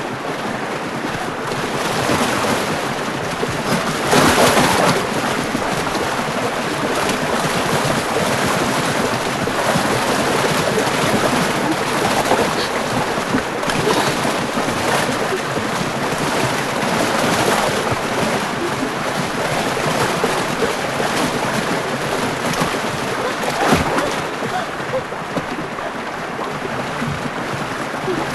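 Water rushing and churning steadily, like a strong river current or flood, with a louder surge about four seconds in.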